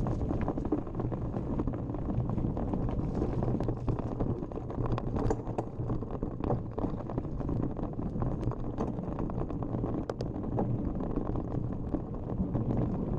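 Mountain bike descending a rough dirt trail: a steady rumble of tyres and wind on the mounted camera's microphone, with frequent small clicks and rattles from the bike and loose stones.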